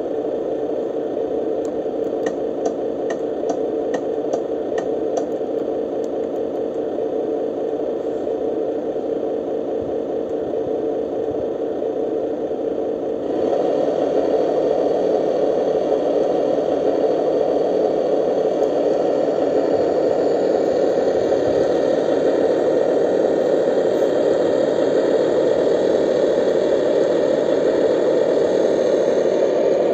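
Scale RC Scania R730 truck's sound module playing a simulated diesel engine idling through its small speaker, a steady, slightly rattly drone. There is a run of light ticks in the first few seconds, and the engine sound steps up louder about 13 seconds in.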